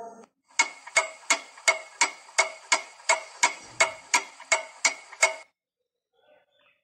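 Clock ticking sound effect, about three even ticks a second, marking time fast-forwarding. It stops abruptly after about five seconds.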